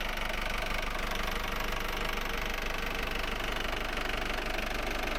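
Volvo Penta AD31 marine diesel engine idling steadily.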